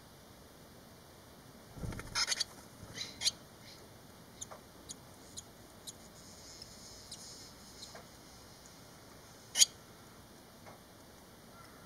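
Barn swallow nestlings at the nest, five days old, giving faint high squeaky begging calls among scattered clicks and scratchy rustles. There is a cluster of scratches with a low thump about two seconds in, and one sharp click later on is the loudest sound.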